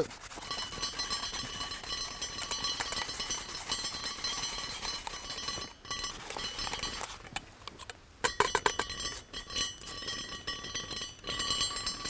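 Lid of a Dutch oven rattling on the pot at a full boil, steam lifting it in runs of quick light metallic clicks.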